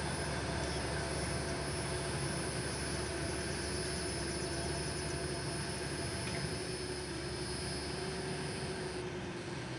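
Bobcat skid steer running steadily while grading soil, with an engine hum and a steady high whine that stops near the end.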